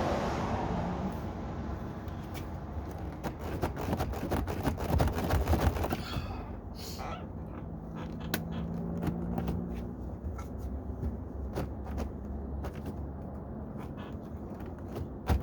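Hands tugging and prying at a plastic car door trim panel: irregular clicks, knocks and scrapes as it is worked loose from its clips, busiest in the first half. A steady rushing noise fades out in the first couple of seconds.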